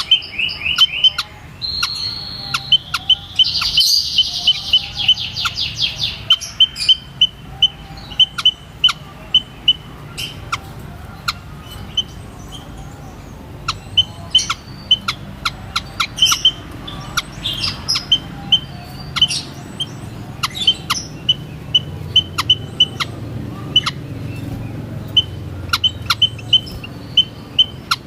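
White-headed munias (Lonchura maja) calling: many short, high chirps repeated irregularly, with a quicker run of notes in the first few seconds.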